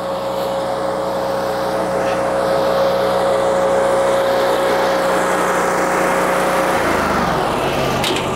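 A tractor engine drives the Japa 395 firewood processor through its PTO, with a steady whine over the engine's drone. About seven seconds in, the whine stops and the machine note changes as the processor is shut off, leaving the engine running. A short click follows near the end.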